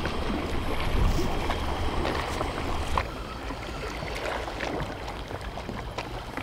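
Wind rumbling on the microphone over sea water moving against a breakwater, with a few faint clicks. The rumble eases about three seconds in.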